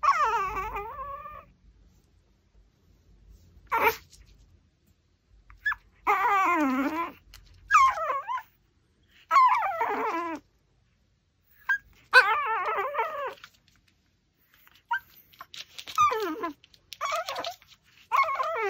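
Pomeranian whining in a series of drawn-out, wavering calls that rise and fall in pitch, about eight in all with pauses between them. There are also a couple of short sharp clicks.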